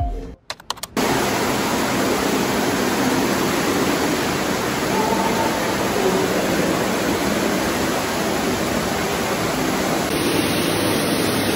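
Steady rush of water flowing down a sloped walkway, starting about a second in after a brief drop-out.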